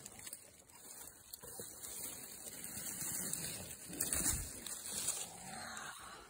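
Footsteps crunching through dry leaf litter, with twigs and brush rustling against the walker, loudest about midway through.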